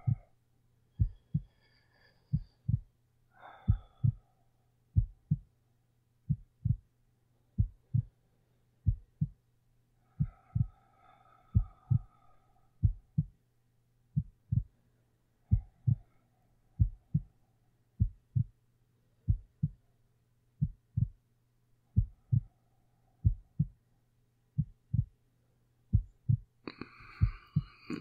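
Human heartbeat: slow, steady paired lub-dub thumps, about one beat every second and a quarter, over a steady low hum.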